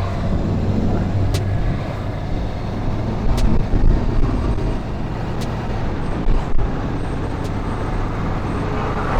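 Honda CB650R's inline-four engine running steadily while being ridden, with wind rushing over a clip-on lavalier microphone.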